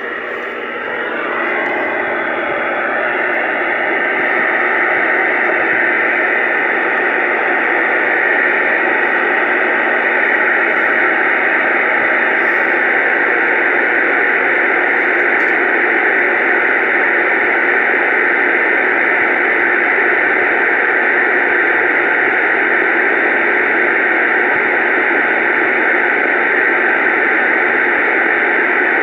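Steady radio static, a hiss heard through a small speaker, swelling over the first few seconds and then holding level.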